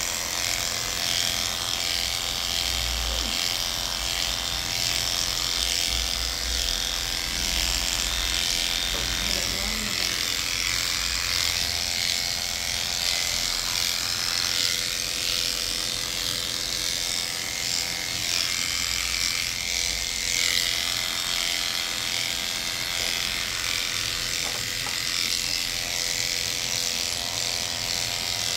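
Electric pet clipper running steadily with a constant motor hum and blade buzz as it shaves through a dog's matted coat.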